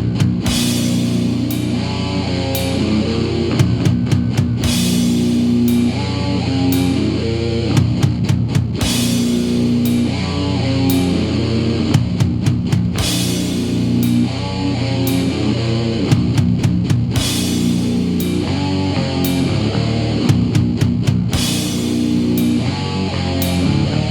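Death metal played by a band with distorted electric guitars, bass and drums, with repeated cymbal crashes, starting just before this point after a silent gap. It is an instrumental passage with no vocals, from a 1995 cassette recording.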